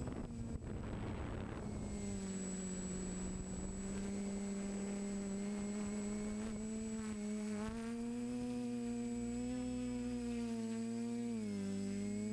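TBS Discovery Pro quadcopter's motors and propellers whirring, heard from the onboard camera. The hum holds a steady pitch, rises a little about eight seconds in and dips briefly near the end. There is wind rush over it in the first couple of seconds.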